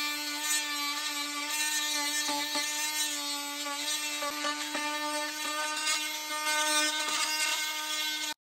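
Cordless oscillating multi-tool running steadily with a scraper blade, stripping paint off a wooden tabletop: a steady high buzz with scattered scratchy ticks from the blade on the wood. It cuts off suddenly near the end.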